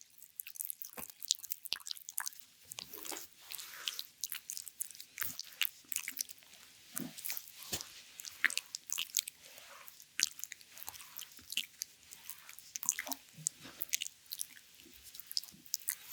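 Oiled hands sliding and pressing over bare abdominal skin, making irregular wet, sticky clicks and squishes.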